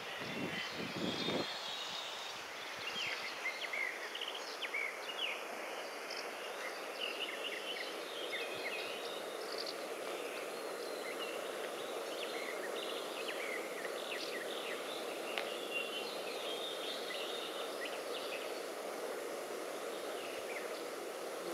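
Outdoor ambience of small birds chirping in the trees over a steady background hum of environmental noise.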